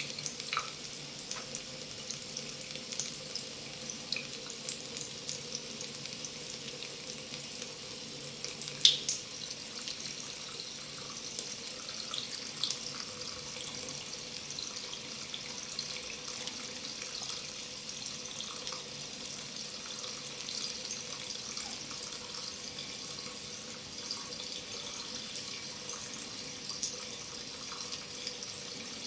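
Water running steadily from a tap into a sink, with scattered small splashes and drips and one louder splash about nine seconds in.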